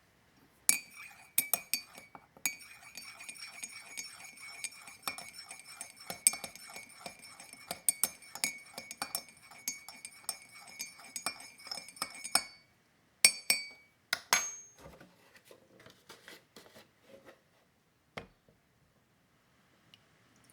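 A teaspoon stirring tea in a cup, clinking quickly and steadily against the side so the cup rings. The stirring stops about two-thirds of the way through, followed by a few separate clinks and soft scrapes.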